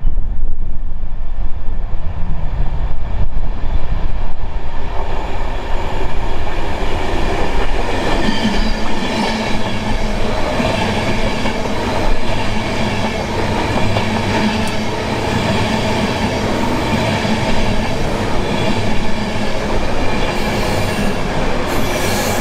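Electric InterCity 225 express with Mk4 coaches approaching and running past close by: a low rumble at first, becoming a dense clatter of wheels on the rails from about eight seconds in as the coaches pass.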